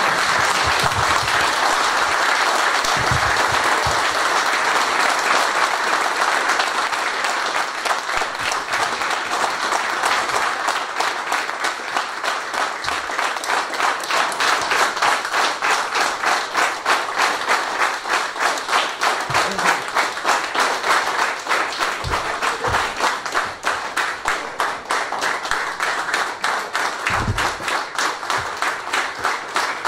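A roomful of people applauding as a tribute to a dead union leader, in place of a minute of silence. The dense clapping settles, about ten seconds in, into rhythmic clapping in unison at about two claps a second.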